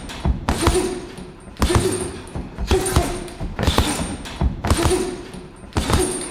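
Heavy thumps at an even pace of about one a second, each followed by a fading hiss.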